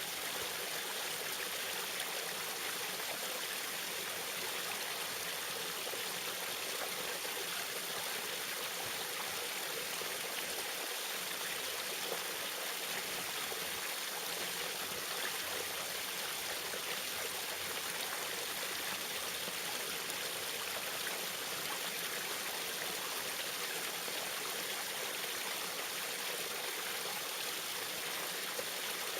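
Small waterfall: water splashing and rushing steadily, a bright hiss with little low rumble.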